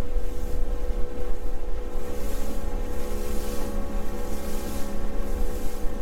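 A boat's 50 hp outboard motor running steadily under way, with gusty wind buffeting the microphone.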